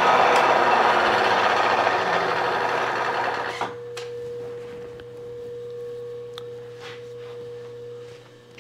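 Milling machine drilling a small pilot hole in a motorcycle shift shaft: a loud, steady cutting noise that stops sharply about three and a half seconds in as the drill is withdrawn. The spindle then runs on with a steady hum, with a few light clicks.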